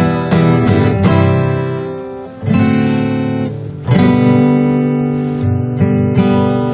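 Steel-string acoustic guitar strummed in an instrumental passage, chords left to ring. The sound fades a little past two seconds, then a new chord comes in, with another about four seconds in.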